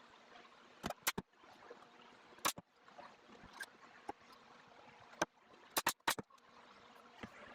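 Pneumatic narrow crown stapler firing 1-1/4 inch staples into wood trim: about seven sharp shots, several in quick succession near the end, over a faint background hiss.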